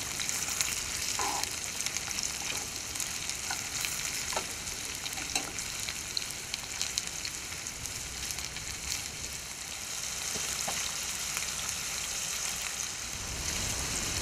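Pieces of rainbow trout sizzling steadily in hot oil in a non-stick frying pan, with scattered small pops. A few light scrapes and knocks of a spatula turning the pieces come in the first half.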